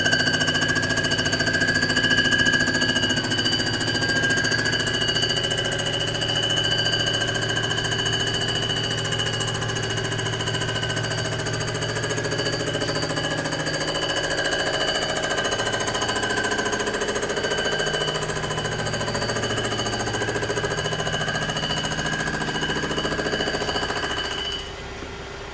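Comec ACF200 cylinder-head surfacing machine running a 3-thousandths cut across a cast-iron Rambler 327 head: a steady mechanical run with a high, even whine from the spinning cutter. The sound drops off suddenly about a second before the end.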